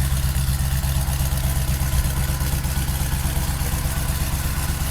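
American V8 muscle car engine idling with a steady, evenly pulsing low rumble.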